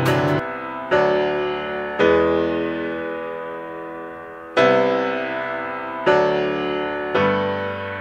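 Background music: slow chords on a keyboard-like instrument, six struck in turn, each left to ring and fade away.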